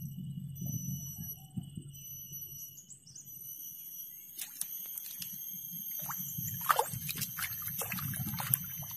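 A hooked wild Nile tilapia thrashing at the water surface on the line: a quick, irregular run of splashes that starts about halfway through and grows busier.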